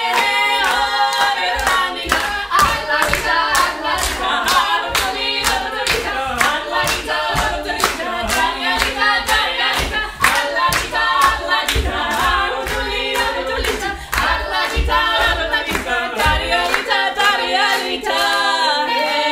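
A small group of voices singing a Georgian song in harmony, with hands clapping a steady beat. Near the end the voices settle into a held chord.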